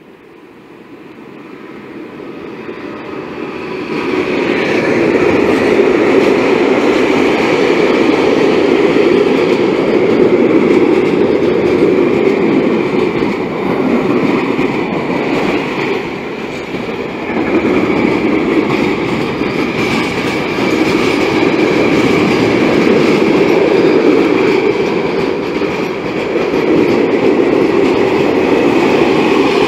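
A long freight train hauled by an ÖBB class 1216 electric locomotive passing close by. The sound builds over the first few seconds as the train approaches, then holds as a steady rumble and clatter of wagon wheels on the rails, with a high ringing tone above it.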